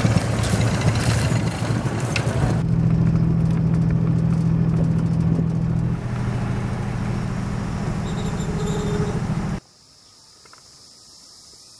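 A motor scooter's engine passing on a concrete quay, then a boat engine's steady low drone heard from inside the cabin; a little before the end the sound cuts off suddenly to quiet room tone.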